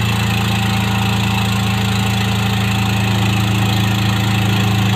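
Heavy diesel engine idling steadily with a deep, even hum.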